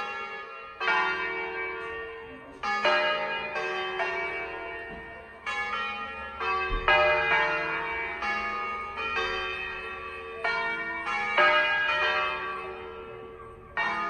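Church tower bells ringing: several bells of different pitches struck one after another in an irregular, overlapping sequence, each stroke ringing on and fading before the next.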